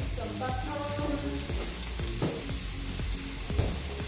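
Steak searing in a cast-iron skillet on a gas burner, sizzling steadily with two sharp ticks about two and three and a half seconds in. Faint music plays underneath.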